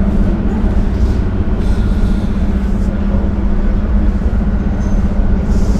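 Steady low rumble with a constant low hum.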